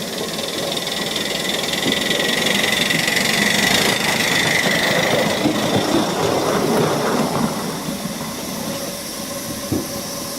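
7¼-inch gauge live-steam miniature locomotive running, with hissing and working noise that builds over the first few seconds and eases off after the middle.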